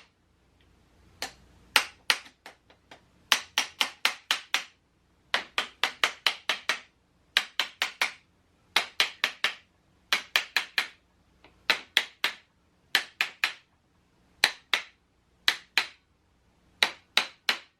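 Repeated sharp knocks driving the fork clamp down onto the motorcycle's fork legs, in quick bursts of three to six strikes, about one burst a second.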